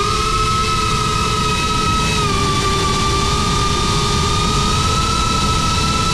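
GEPRC Crown HD cinewhoop FPV drone's motors and ducted propellers whining steadily in flight, the pitch dipping slightly about two seconds in, over a low rumbling noise.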